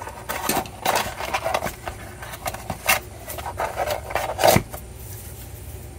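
Hands working a cardboard action-figure tray. Rustling and scraping with a few sharp clicks as the cut plastic ties are pulled out through the tray's holes.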